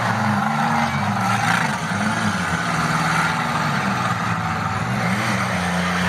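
Several demolition derby cars' engines revving up and down at once, their pitches rising and falling as the cars ram and reverse.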